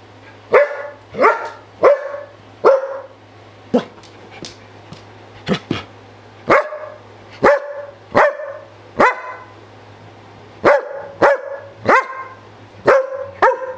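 Belgian Malinois barking repeatedly: about sixteen short, sharp barks at uneven intervals, a few in quick pairs, over a steady low hum.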